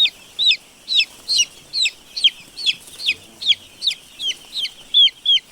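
Broiler chickens calling: a steady run of short, high-pitched peeps, each sliding downward, about two or three a second.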